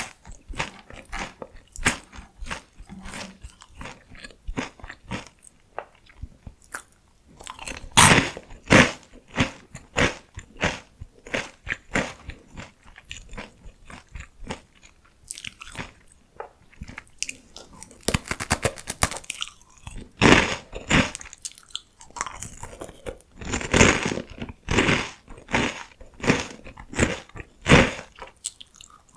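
Crunching and chewing of PoStick salty potato sticks: rapid, crisp crunches with louder bursts of biting about 8 seconds in, around 20 seconds and around 24 seconds.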